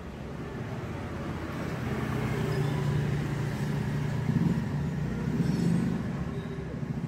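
A motor vehicle's engine on the road, a low hum that grows louder from about two seconds in and eases near the end.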